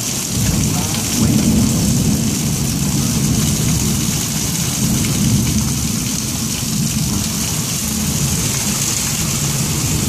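Steady heavy rain hissing, with a long low roll of thunder that swells about half a second in and keeps rumbling.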